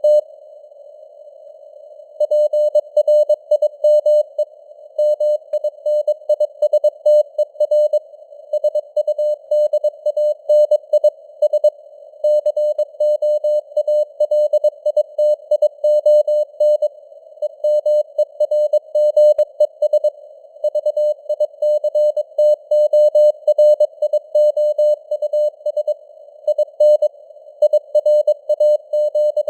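Morse code at 22 words per minute, sent as a single steady tone of about 600 Hz keyed rapidly on and off over a narrow band of simulated radio hiss. The sending stops for about two seconds just after the start, then resumes and keeps going.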